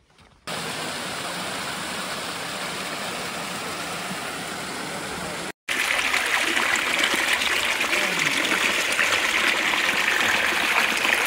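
Water spilling over rocks into a pool from a small cascade: a steady rush. It cuts off for a moment about five and a half seconds in and comes back louder and brighter.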